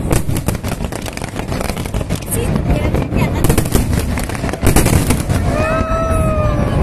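Fireworks display: rapid bangs and crackling from aerial shells over a constant low rumble. A drawn-out, slowly falling tone sounds about five and a half seconds in.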